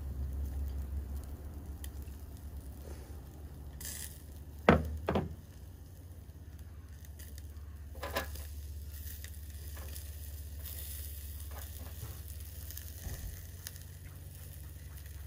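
Meat and vegetables sizzling on the wire grill of a small charcoal BBQ stove, with chopsticks turning the pieces. Two sharp knocks about five seconds in are the loudest sounds.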